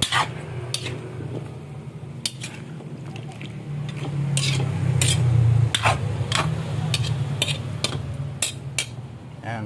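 Metal spatula scraping and clinking irregularly against an aluminium wok while stirring chicken and chunks of green papaya, over a steady low hum that grows louder in the middle.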